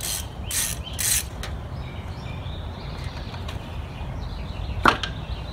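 Ratchet wrench loosening the distributor's 10 mm bolt: three short ratcheting strokes in the first second or so, then a single sharp click near the end as the distributor is worked loose.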